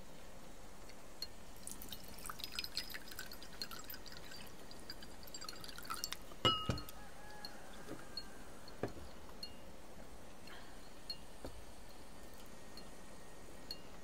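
Metal spoon clinking and scraping in a ceramic soup bowl and tableware tapping on a wooden table, a run of small clinks followed by a louder knock with a brief ring about six and a half seconds in, then scattered light taps.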